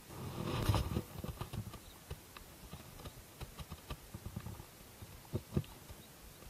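Close handling noise of a spinning rod and reel: a burst of rustling and knocking about half a second in, then scattered light clicks and taps as the reel is handled.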